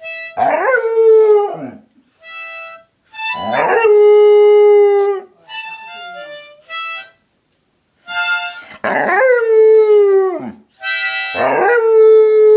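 A Border Collie–Staffie cross dog howling along to a harmonica: four long howls that start high and slide down, two of them settling on a held note, with short harmonica notes played in the gaps between them.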